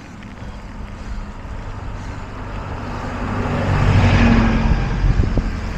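A motor vehicle passing close by, growing louder to a peak about four seconds in, then fading.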